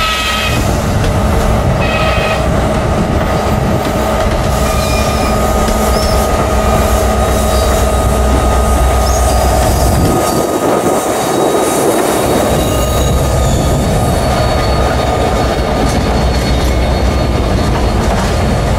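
An NJ Transit diesel push-pull train of bilevel coaches rolls past at speed, with a steady rumble of wheels on rail and a thin, steady squeal. The pushing locomotive at the rear goes by about ten seconds in, and the train keeps running past, loud and steady, after that.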